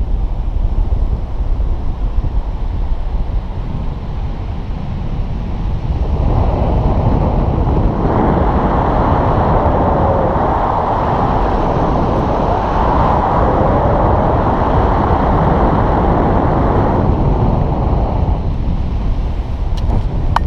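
Airflow rushing over the microphone of a camera on a paraglider in flight, a loud steady roar that grows stronger and brighter from about six seconds in, then eases back near the end.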